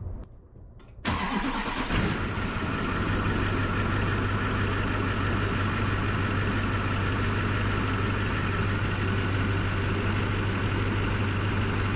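Chevy 3500's LB7 Duramax 6.6-litre V8 turbodiesel starting about a second in, catching at once, then idling steadily. This is its first start after a water pump, oil cooler and Banks intercooler piping install.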